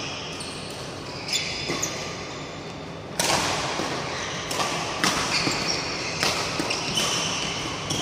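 Badminton play on an indoor court: sharp racket strikes on the shuttlecock at uneven intervals, the loudest about three seconds in, with short high squeaks from court shoes on the mat.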